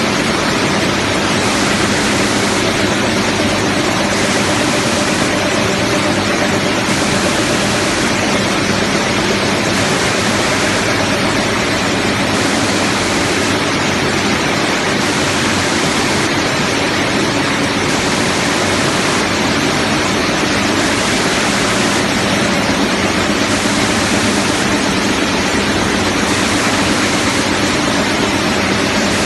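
Running frozen french fries processing line: a steady, loud, even hiss of machinery with a low hum underneath, from the vibrating screen, conveyors and quick-freezer at work.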